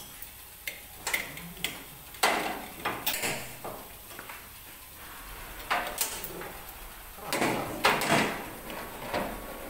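Chain pipe wrench clanking and scraping against a screw compressor's stuck spin-on oil filter as it is fitted and worked, in irregular knocks and chain rattles. The loudest bursts come about two seconds in and again near the end.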